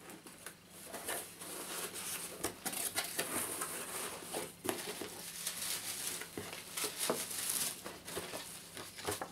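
Cardboard box and paper packaging handled and opened by hand: continuous irregular rustling and crinkling with sharp crackles.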